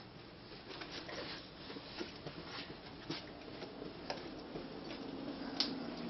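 Faint, irregular soft taps and clicks of a toddler's bare feet walking on carpet and then onto a vinyl floor, with one sharper click near the end.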